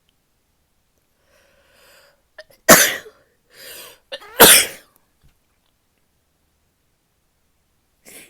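A woman sneezing twice, about two seconds apart. Each sneeze comes as a sudden blast after a drawn-in breath.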